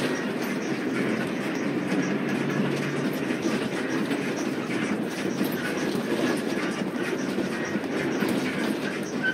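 Steady rumble and rattle of a moving road vehicle heard from inside its cabin while it drives through traffic.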